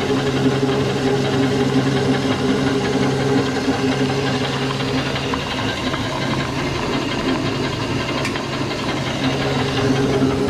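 Feed pellet mill running steadily with a constant hum, pressing the third pass of chicken feed into pellets.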